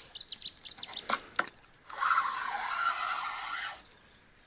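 A small bird chirping in quick repeated high notes, with two sharp clicks about a second in. Then comes a steady rasping noise lasting nearly two seconds, which stops abruptly.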